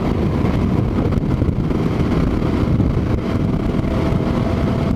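Steady wind rush over a helmet-mounted microphone, with a motorcycle running at highway speed, about 70 mph, underneath.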